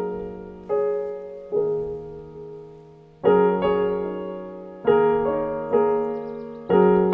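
Background piano music: slow chords struck about once a second, each dying away.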